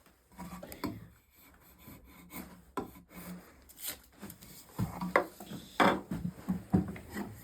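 Drawknife shaving a spruce stool leg held in a vise: a series of short scraping cuts in the wood, coming quicker and louder in the second half.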